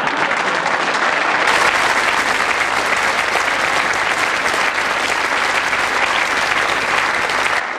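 A studio audience applauding, a dense, steady clapping that stops abruptly near the end.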